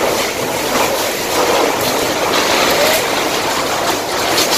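Fire hose spraying water into a burning building: a steady, loud rushing noise with a few faint knocks.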